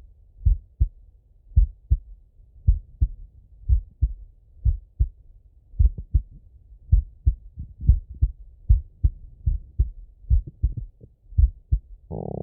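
A man's heartbeat heard through a stethoscope: slow, even lub-dub pairs of low thumps, about one beat a second.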